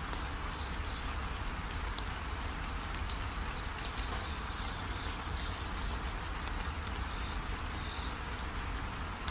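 Small indoor tabletop fountain running, water trickling steadily into its bowl. A few faint high chirps are heard between about two and four seconds in.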